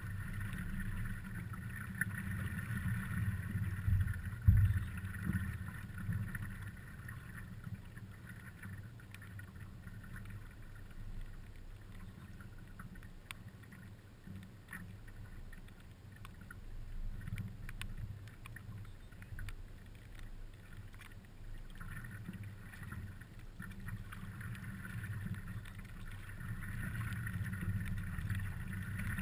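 Water lapping and splashing against the nose of a stand-up paddleboard as it glides along, over a low wind rumble on the microphone. A single thump comes about four and a half seconds in.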